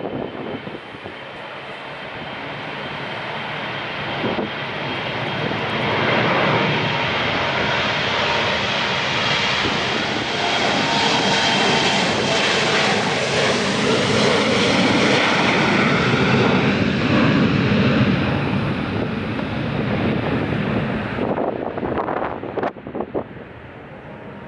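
An airliner's engines passing close by. The sound builds over several seconds, stays loud with a steady high whine over the roar for about fifteen seconds, then fades away.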